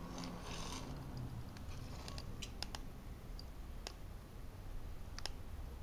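Faint handling noise: a soft rustle at the start, then scattered small sharp clicks over a low steady hum.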